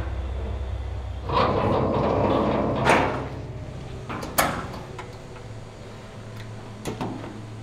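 Sheet-metal enclosure panel of a Tornos MultiSwiss CNC lathe sliding and being pushed shut, with a few sharp clicks and knocks, over a steady low hum.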